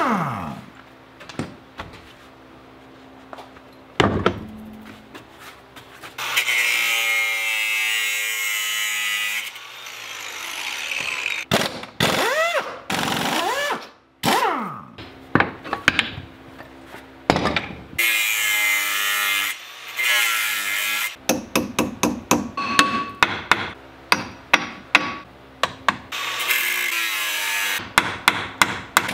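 Air impact wrench running in several spurts, rising and falling in pitch, as the wheel and brake parts are undone on the minivan's front hub. In the last third comes a fast run of hammer blows on the steel brake rotor.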